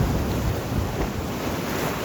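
Sea waves washing in and breaking on the shore, with wind buffeting the microphone.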